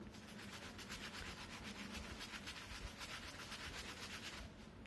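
Small brush scrubbing thinner over the freshly soldered charging-jack joints on a phone's circuit board: rapid, light back-and-forth bristle strokes that stop shortly before the end.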